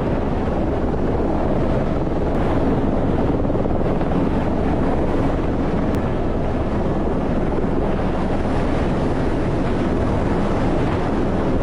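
Steady, loud rushing noise with wind buffeting the microphone.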